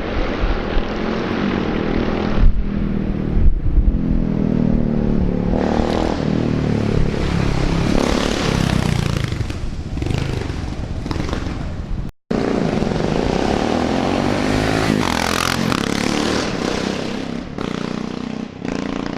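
KTM Duke 690 single-cylinder motorcycle engine running through a GPR Furore aftermarket midpipe and sport exhaust, with the catalytic converter kept and no dB killer. The engine note rises and falls repeatedly as the bike revs and accelerates. The sound cuts out abruptly for a moment about twelve seconds in.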